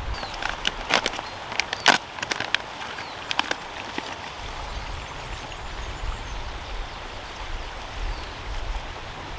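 Steady rush of a nearby mountain stream, with a quick run of sharp clicks and crinkles in the first few seconds.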